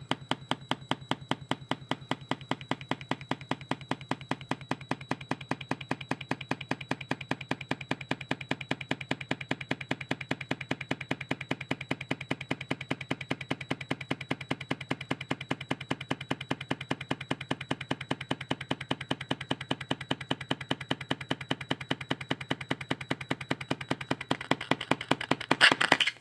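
4-inch JBL midrange speaker driver overdriven at about 80 watts by a low test tone: a steady low hum with a rapid, even rattle of clicks, about four a second, as the cone is pushed past its limits. The clicking grows louder near the end, then cuts off suddenly.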